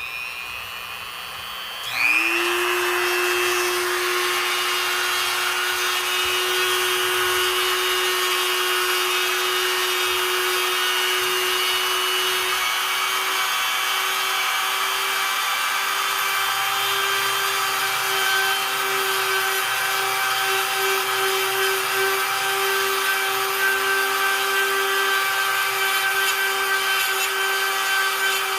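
Small power drill boring a hole through a piece of broken china. The motor runs at a lower speed at first, then about two seconds in it speeds up to a louder, higher steady whine and holds there.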